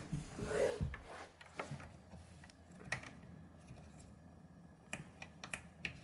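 Faint scattered clicks and light taps as a dishwasher door spring and its hook are handled and fitted at the door hinge.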